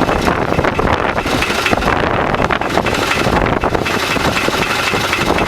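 Tractor engine running, with wind buffeting the microphone.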